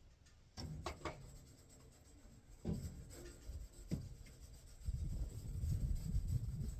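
A few sharp knocks and clacks, as of wood and sawmill parts being handled, then a low rumbling noise that starts about five seconds in and keeps going.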